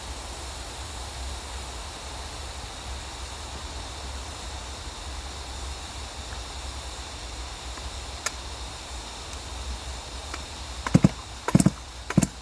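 Steady outdoor background hiss with a low rumble, and no saw running. Near the end come a few sharp knocks, a little under a second apart.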